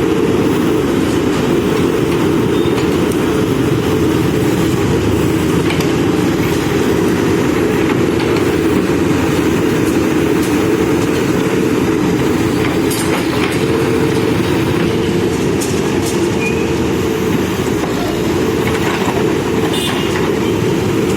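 Backhoe loader's diesel engine running steadily under load while it digs, with a few light knocks.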